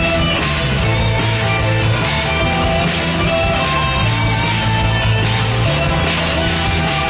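Live rock band playing an instrumental break: electric guitar over steady bass and drums.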